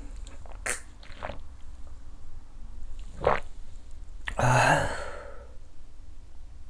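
A man drinking a shot of soju, with a few faint mouth and swallowing sounds, then a breathy sigh after the drink about four and a half seconds in.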